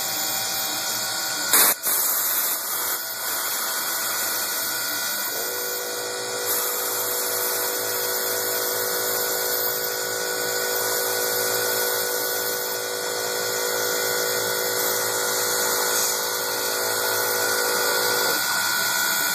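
Milling machine spindle running, its end mill cutting Delrin (acetal copolymer) plastic with a steady drill-like whine. A sharp knock comes about a second and a half in, and a steady hum joins from about five seconds in until near the end.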